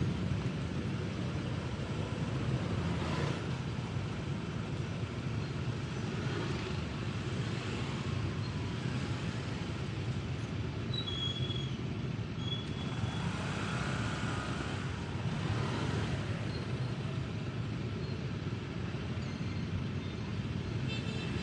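Motorbikes and scooters idling in stopped street traffic: a steady low engine rumble, with a couple of brief high tones near the middle.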